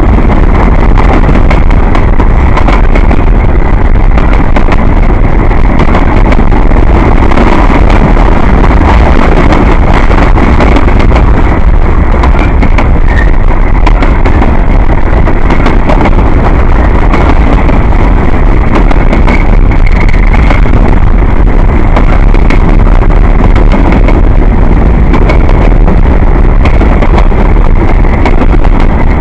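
CSX freight train rolling past close by: a loud, steady rumble of wheels on rail with many small clicks and clatters through it, and no horn.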